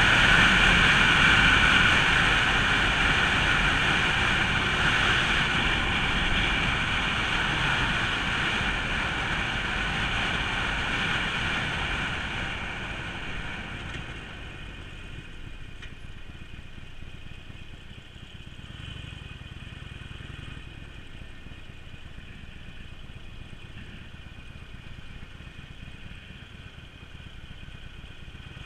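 Harley-Davidson Forty-Eight's V-twin running with wind rush while riding, fading over the first dozen seconds as the bike slows. It then settles to a quieter, low, steady idle for the rest.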